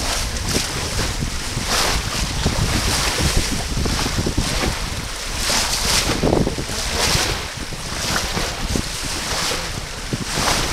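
Wind buffeting the microphone over the rush of water along a racing sailboat's hull as it sails upwind, with irregular louder splashes of waves against the bow.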